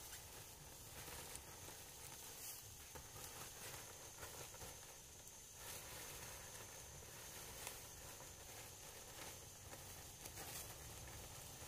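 Faint rustling and handling of dry palm leaves as they are laid onto a bamboo roof frame, a few soft light scrapes, over a steady faint high-pitched tone.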